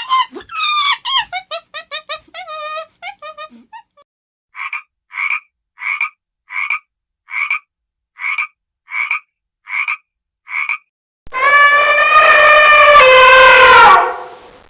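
A sequence of animal calls. First a quick run of calls that fall in pitch, then about eleven short, evenly spaced calls a little over half a second apart. Near the end comes one long, loud call that drops in pitch as it ends.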